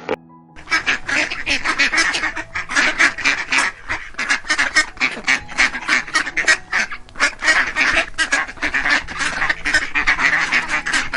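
Ducks quacking in a rapid, continuous run of calls, several a second, starting about half a second in.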